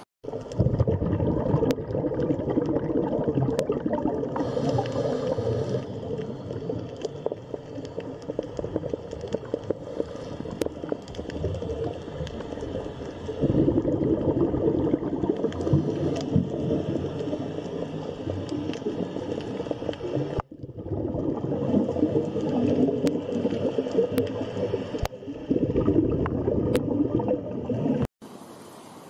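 Water bubbling and gurgling in an aquarium, a dense, crackling churn that cuts out abruptly for a moment about two-thirds of the way through.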